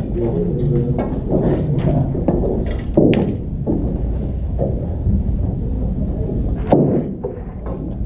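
Two sharp clacks of snooker balls being struck, the louder about three seconds in and another near seven seconds, over the steady background noise of a busy snooker hall.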